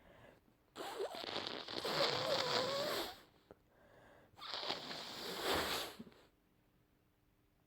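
A person blowing a congested, cold-ridden nose into a tissue twice: a long wet blow with a wavering honk-like tone through it, then a shorter second blow.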